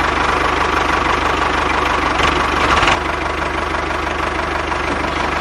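Diesel tractor engine running steadily, with a quick, even knocking beat.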